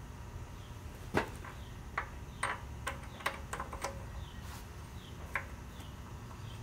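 Metal bolts clinking and tapping against the tractor's housing as they are picked up and threaded in by hand: about eight sharp metallic clicks, scattered and irregular.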